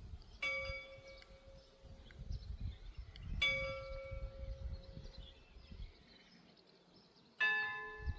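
A large bell struck three times, about three seconds apart, each stroke left to ring out; the third stroke has a different, deeper set of tones.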